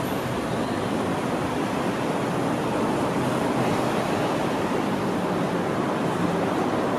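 Steady, even rushing noise with no distinct events, heard at a railway station platform.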